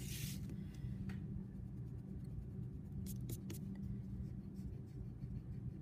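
Drawing sounds on paper: a clear plastic ruler brushing across the sheet at the start, then a few short scratchy wooden-pencil strokes around three seconds in, over a steady low hum.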